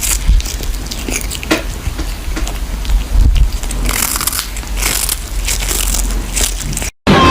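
Irregular crunching and crackling, many short sharp clicks over a steady low rumble, cutting off suddenly near the end.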